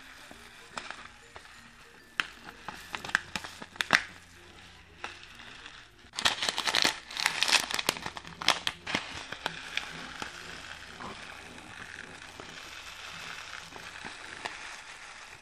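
Small styrofoam beads handled and poured from a plastic bag into a clear tray. At first there are scattered light clicks of beads dropping. The bag crinkles loudly from about six seconds in, then the beads spill out with a steady soft rustle.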